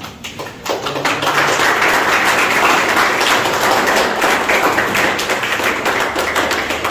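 A group of people clapping, the applause building about a second in and going on steadily before easing off near the end.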